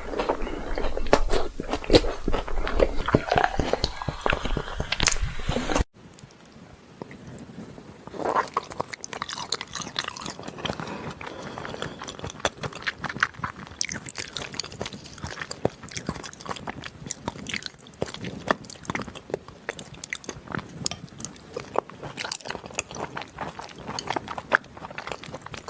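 Close-miked eating of salmon: bites and wet chewing with many small clicking mouth sounds. About six seconds in the sound cuts abruptly to a quieter recording of the same kind of chewing.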